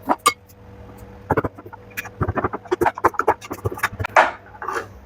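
Irregular clicks, knocks and rattles of tools and metal parts being handled while a washing machine is taken apart, with the loudest knock about four seconds in.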